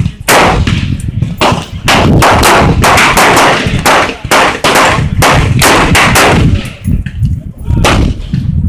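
Gunfire from several firearms: repeated sharp shots, a few spaced ones at first, then a dense run of overlapping shots through the middle, thinning out near the end.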